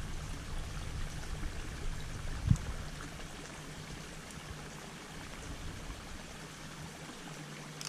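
Steady hiss of water over a faint low hum, with one short low thump about two and a half seconds in.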